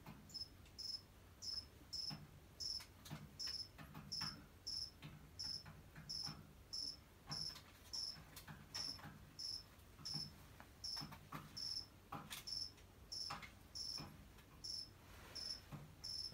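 A cricket chirping in an even rhythm, about three short high chirps every two seconds, with faint irregular clicks underneath.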